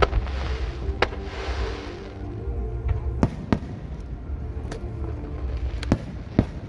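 Aerial firework shells bursting: about half a dozen sharp bangs at uneven intervals over a low rumble, the first two followed by a hiss.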